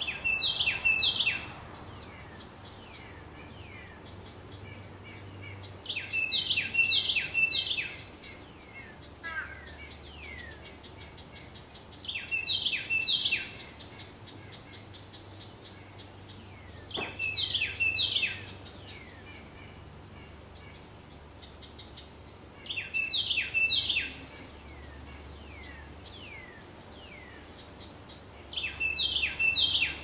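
A songbird sings the same short, loud phrase of quickly repeated notes six times, about every five to six seconds. Softer falling chirps come between the songs.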